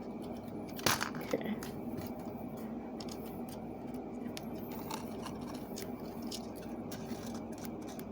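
Small clicks and scrapes of thin wire being bent and wrapped with pliers, with one sharper click about a second in, over a steady low hum.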